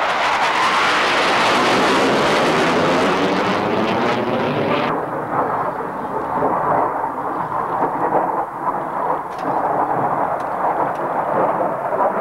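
Saab J35 Draken jet fighter's afterburning turbojet passing close and climbing away: a loud jet roar with a sweeping, phasing whoosh as it goes by. About five seconds in the hissing top of the sound cuts off sharply, leaving a lower rumble as the jet draws away.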